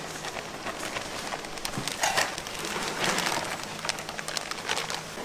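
Chicken deep-frying in hot oil in a cast-iron gamasot cauldron: a dense, continuous crackling sizzle that swells briefly about two and three seconds in.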